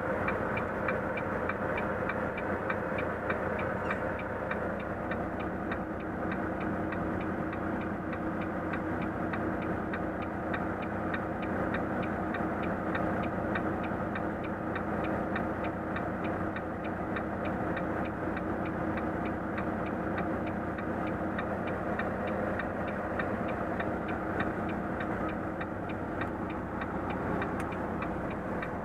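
Volvo FM truck's diesel engine running low and steady, heard inside the cab, with an even ticking of about three ticks a second from the turn-signal indicator.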